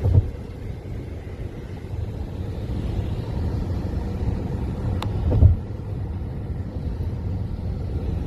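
Steady low road and engine rumble of a car on an expressway, heard from inside the cabin, with two brief low thumps, one at the very start and one about five seconds in.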